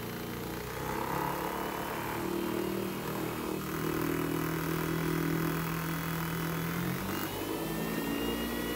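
3D-printed axial flux brushless DC motor driving a 3D-printed axial flux three-phase generator through a 3D-printed U-joint, running with a steady whir as it speeds up. The pitch shifts about seven seconds in, where a thin high whine starts to rise slowly.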